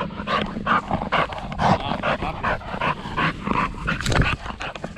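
Pit bull panting hard in quick, even breaths, winded from playing fetch, with one louder thump about four seconds in.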